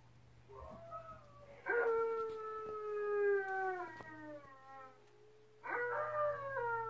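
Alaskan Malamute howling, played through a TV speaker: a short rising call, then a long howl that slowly falls in pitch, and a second long howl starting near the end.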